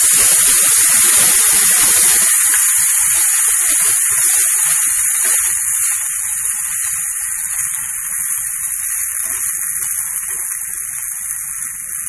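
Washed sama rice (barnyard millet) sizzling in hot oil in a nonstick pan while it is stirred and spread with a plastic spatula, with light scraping knocks of the spatula on the pan. The sizzle is loudest in the first couple of seconds and then eases off.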